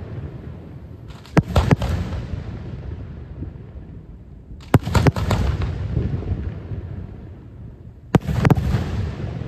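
Fireworks going off in the night sky: three volleys of two or three sharp bangs each, about three and a half seconds apart. Each volley is followed by a long rumbling echo that dies away.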